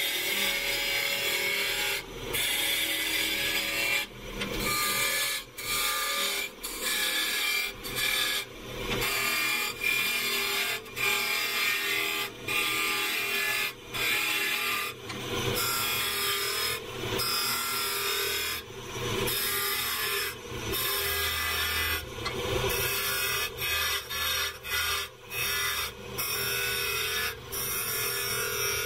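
Turning gouge cutting maple burl spinning on a wood lathe: a continuous hiss of shavings, broken by short gaps every second or two as the tool comes off the wood between passes.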